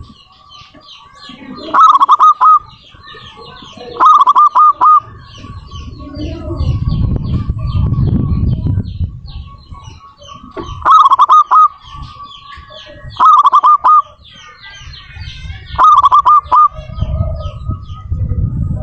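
Zebra dove (perkutut) cooing: five loud phrases of quick repeated notes, joined by a faint drawn-out coo. Faint high chirps from other small birds run underneath, and a low rumbling noise swells twice.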